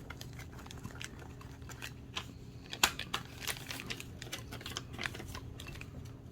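Irregular small plastic clicks and taps from a small folding camera tripod being handled and unfolded, the sharpest click about three seconds in.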